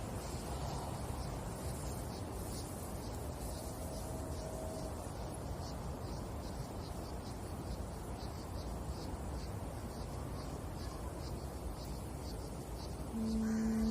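Outdoor ambience: a low rumble of wind on the microphone under a faint high chirp repeating evenly about three times a second. Near the end, a woman's voice begins a held, steady sung note.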